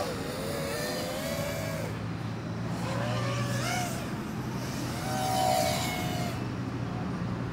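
FPV drone's brushless motors whining, the pitch rising and falling as the throttle changes, over a steady low hum.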